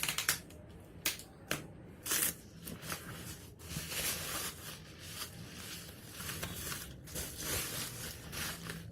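Cardboard box and packaging of a mixer grinder being opened by hand: a few sharp crackles and tears in the first two seconds, then several seconds of steady rustling and crinkling of the packing.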